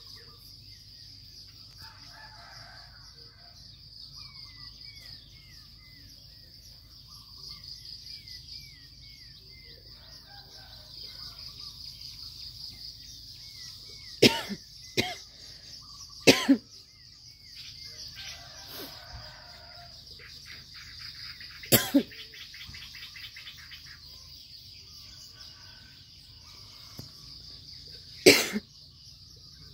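Steady high-pitched drone of insects, with small birds chirping in short repeated runs of little rising notes. About five sudden, loud, very short sounds break in around the middle and near the end.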